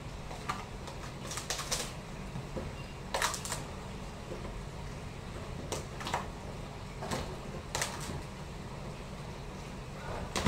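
A spoon clacking and scraping against a plastic tub while chicken pieces are mixed with marinade, in irregular clicks and short scrapes, over a steady low hum.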